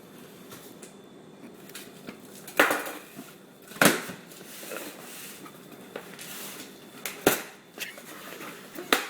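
Cardboard shipping box being opened and handled: rustling and scraping, broken by four sharp cracks or rips.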